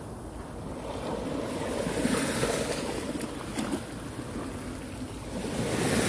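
Small sea waves breaking and washing up over a sloping concrete seawall, a steady wash of surf that swells a little past a second in and builds again near the end as a wave slaps against the wall's edge.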